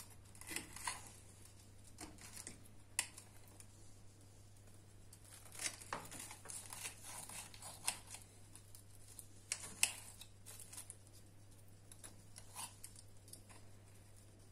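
Knife and fork cutting through a kunafa of shredded kataifi pastry on a plate: scattered short crackles and scrapes, with sharp clicks of the cutlery, coming in clusters every few seconds.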